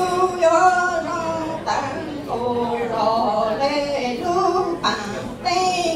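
A single voice chanting Hmong lug txaj, sung poetry, in drawn-out notes that bend in pitch, broken by short pauses for breath.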